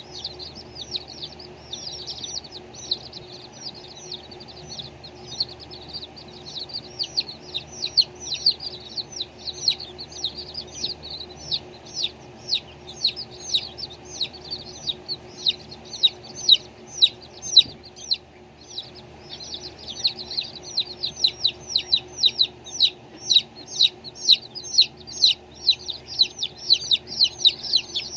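Baby chicks peeping without a break: many quick, high, downward-sliding peeps, several a second, pausing briefly about eighteen seconds in.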